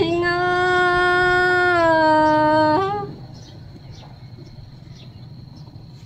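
Unaccompanied Tai folk singing: a single voice holds one long note, steady in pitch, for nearly three seconds, then breaks off. The rest is a quiet pause with faint hiss and a thin high whine.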